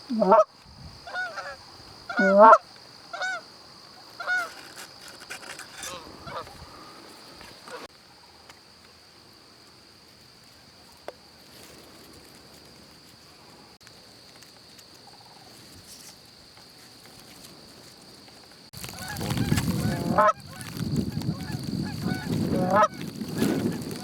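Canada geese honking as they fly in and land: a flurry of calls over the first several seconds, a quiet stretch, then louder honking over a rushing noise near the end.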